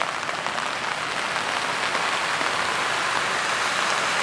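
Heavy rain falling steadily, an even dense hiss with faint patter.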